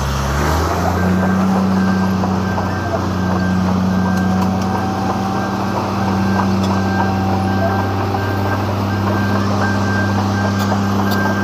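Cold planer (asphalt milling machine) running as it mills the road surface, with a steady low engine drone. A thin high tone sounds on and off over it.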